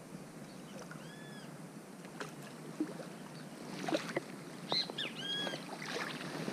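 Hooked rainbow trout splashing at the surface as it is drawn in to the bank on a fly line: scattered short splashes and knocks from about two seconds in. A bird gives a short arched call twice, about a second in and again near the end.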